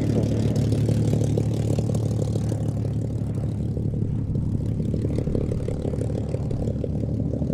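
Supermarine Spitfire's V12 piston engine and propeller running steadily through a display pass, easing slightly in loudness partway through.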